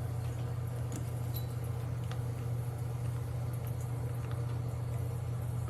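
A steady low hum, with a few faint ticks and taps over it.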